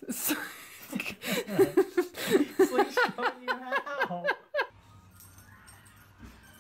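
Laughter in quick, repeated bursts of high giggles, which stops about four and a half seconds in and leaves only faint room sound.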